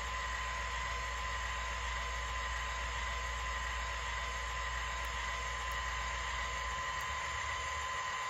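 MTH HO-scale GE ES44AC model locomotive's Proto-Sound 3.0 system playing a steady diesel engine running sound through its small onboard speaker, with a steady high-pitched tone on top. The deep rumble underneath drops away near the end.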